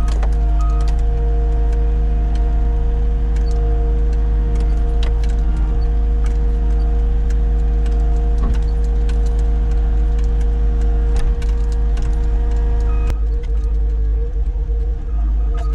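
Engine of heavy equipment running steadily, with scattered metal clanks and rattles while a snow pusher is moved onto a trailer. The engine's note drops back about thirteen seconds in.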